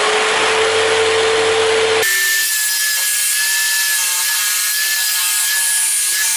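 Bosch 1587 AVS variable-speed jigsaw, mounted upside down as a scroll saw, running and cutting through plywood. About two seconds in, the sound changes abruptly to a louder, harsher sawing noise with a steady high tone.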